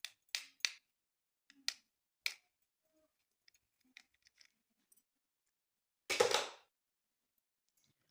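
Plastic toy packaging being handled: a run of sharp clicks and snips, then a louder rustling scrape lasting about half a second, just after six seconds in.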